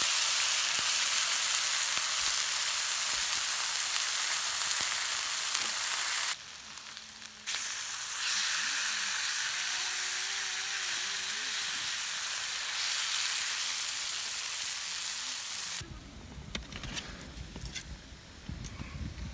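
Sliced beef frying in a hot oiled steel pan, a loud steady sizzle. It breaks off for about a second some six seconds in, then stops about three seconds before the end, leaving only soft knocks and rustling.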